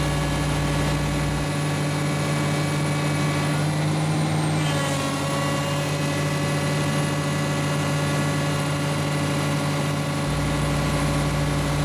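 Komatsu PC410LC-5 excavator's diesel engine running steadily under load from its hydraulic pumps. Its pitch sags briefly about halfway through and then recovers.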